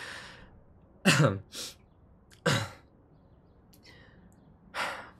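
A man's voice clearing his throat in short coughs, three times: about a second in, about halfway, and near the end.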